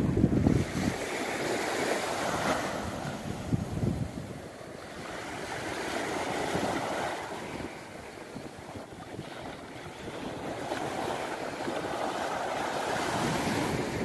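Sea surf breaking and washing up a sandy beach, a steady rushing hiss that swells and fades every few seconds as waves come in. Wind buffets the microphone with low rumbling gusts in the first second and again a few seconds in.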